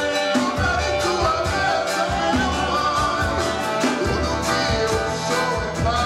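A live band playing a song with a lead singer: a sung melody over a steady drum beat with other instruments.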